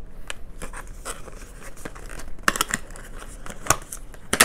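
A small blade slitting the seal on a cardboard product box, with scratchy scraping, tearing and crinkling of card and a few sharp clicks. The clicks are loudest near the end.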